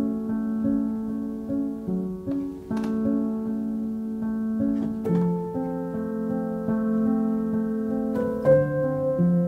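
Background music: a piano piece of held notes and slowly changing chords.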